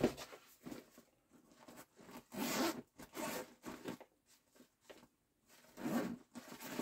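Zipper on a golf cart bag's pocket being pulled open in a few short rasping runs.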